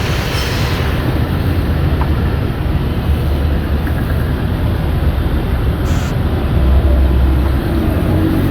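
Steady loud low mechanical rumble with a noisy hiss on top, unbroken throughout.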